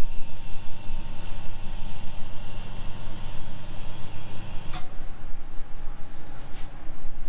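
Calico cat purring close up while being stroked; the low, wavering purr is strong at first and fades after a single sharp click about five seconds in.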